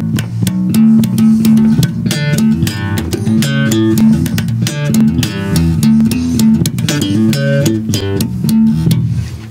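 Electric bass guitar played solo: a steady run of quick plucked notes, a few each second, dying away at the end.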